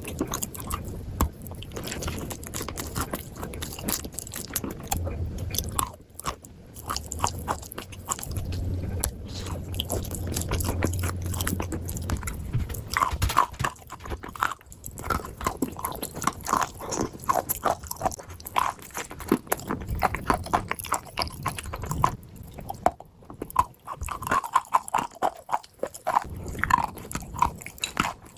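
Dry clay being bitten and chewed: a dense, continuous run of crisp crunches and crackles.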